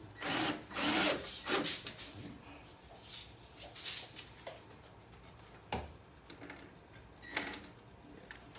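Cordless drill driving self-tapping screws into a metal trim strip in a few short bursts, mixed with clacks and rattles of the metal trim being handled and a single knock past the middle.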